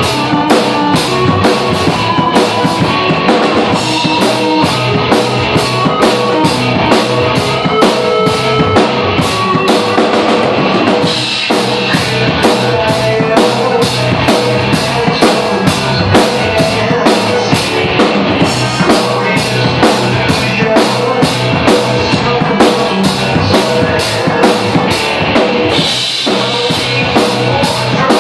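Acoustic drum kit played in a steady rock beat, snare, bass drum and cymbals, along to a rock backing track with guitar.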